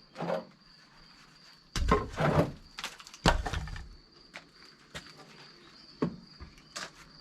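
Two heavy knocks with scraping, about two and three seconds in, then a few light clicks, over a steady high-pitched insect drone.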